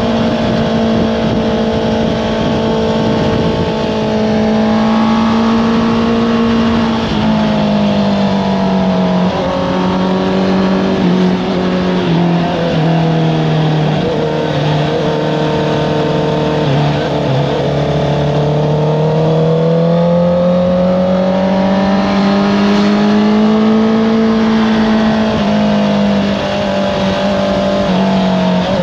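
Honda CBR650R's inline-four engine through an Akrapovič exhaust, heard from on board while riding, with steady wind noise. The engine note drops over several seconds as the bike slows, stays low for a while, then climbs again under acceleration, with a brief dip near the end.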